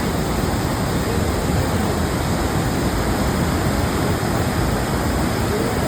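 Heavy, fast-flowing river water rushing steadily, a loud, even roar of flood flow with no break.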